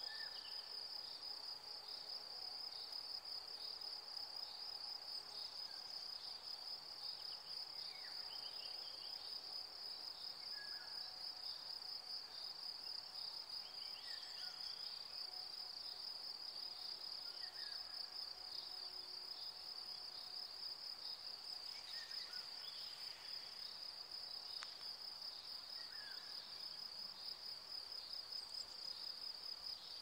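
Crickets trilling steadily on one high pitch, faint and unbroken, with a few short faint chirps scattered through it.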